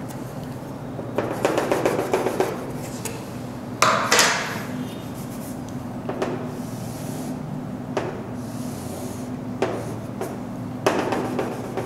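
Chalk scratching and tapping on a chalkboard as lines and a lens outline are drawn, in several short strokes, with a few sharper knocks from the chalk or a wooden ruler against the board. A steady low hum runs underneath.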